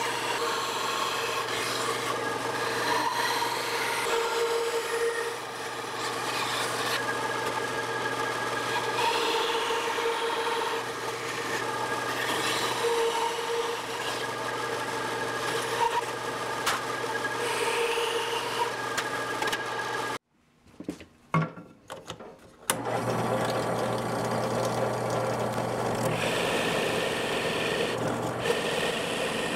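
A small band saw running and cutting through a walnut board: a steady motor hum with the rasp of the blade through the wood. About twenty seconds in it stops, a few knocks follow, and then a drill press runs, boring into the walnut block with a Forstner-style bit.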